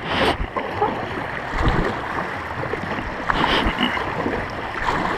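Kayak paddles dipping and splashing in the water as the boats are paddled hard, over a steady rush of water.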